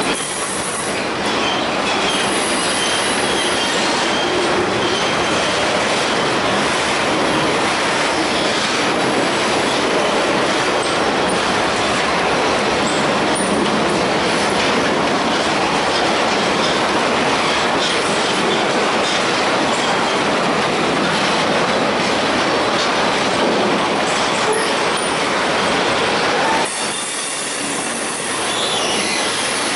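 Norfolk Southern freight train's loaded flatcars rolling past close by: steady wheel-on-rail noise with clicking over the rail joints. A faint high wheel squeal shows in the first few seconds, and the level dips slightly near the end.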